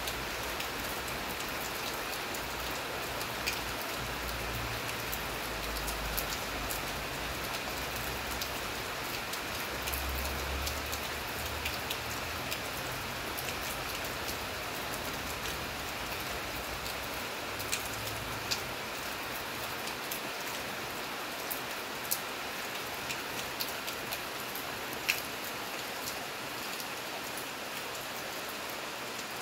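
Steady rain falling, an even hiss with sharp ticks of single drops striking close by now and then.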